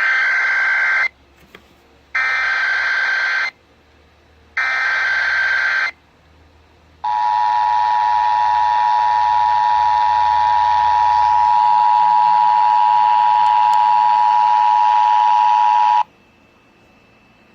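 Emergency Alert System header for a Required Monthly Test: three bursts of SAME data tones, each a shrill warbling screech of about a second and a half, about a second apart. Then the EAS two-tone attention signal, a steady harsh dual tone held for about nine seconds that cuts off suddenly.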